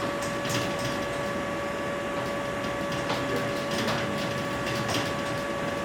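Writing on a lecture board: irregular short scratches and taps, under a steady high electrical whine in the recording.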